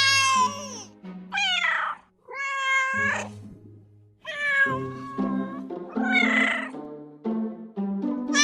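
Domestic cat meowing about five times in a row, each meow under a second with a bending pitch, over background music with low held notes.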